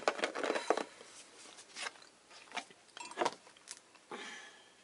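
Rustling and crinkling that fades out within the first second, then a few scattered light clicks and short rustles: raisins being measured out of their bag into a measuring cup.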